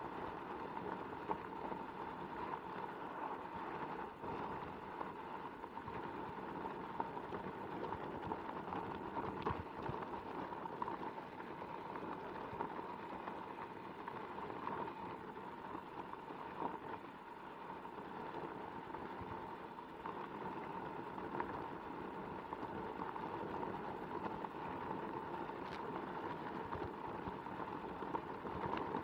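Onewheel XR electric board rolling over a loose gravel trail: the tyre crunching and popping on the gravel in a continuous patter of small ticks, over a steady whine from the hub motor.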